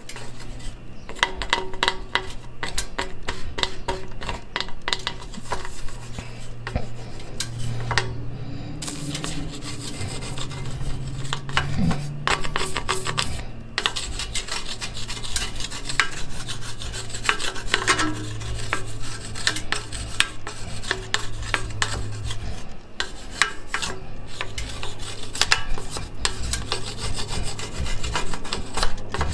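A plastic spoon scraping melted plastic residue off a motorcycle's stainless exhaust header pipes in repeated short, rasping strokes with brief pauses, over a low steady hum.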